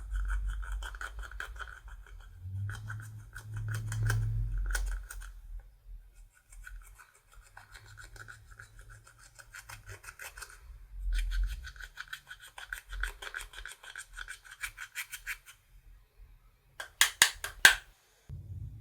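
Slime being worked and mixed by hand, giving stretches of fast, fine crackling pops with a low handling rumble underneath, and a short, louder burst of sharp crackles near the end.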